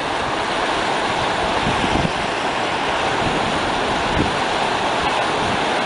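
Shallow mountain stream rushing and babbling over stones: a steady, even water noise.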